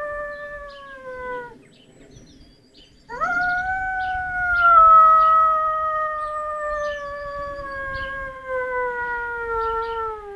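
Lurcher howling: a long howl slowly falling in pitch trails off about a second and a half in. After a short pause a second howl starts with a quick rise and then sinks slowly over about seven seconds.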